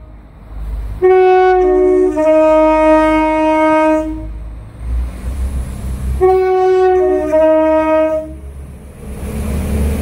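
Northern Ireland Railways diesel multiple unit sounding its two-tone horn twice, each blast a higher note dropping to a lower one. The first comes about a second in and lasts about three seconds; the second comes around six seconds in. Near the end the rumble of the train running into the platform rises.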